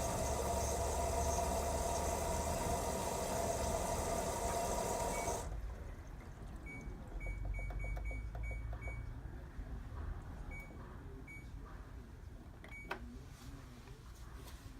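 LG Tromm WD-CR101C drum washing machine running its quick-wash cycle, a steady motor whine that cuts off suddenly about five and a half seconds in. A low rumble follows, with a series of short high beeps and a single click near the end.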